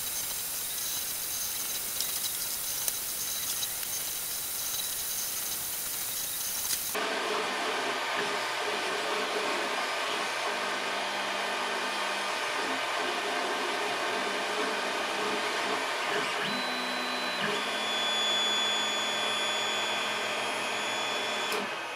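Creality Ender 3 3D printer running a print: a steady fan hiss at first, then, after an abrupt change about a third of the way in, stepper motors whining in several tones that shift in pitch as the print head and bed move.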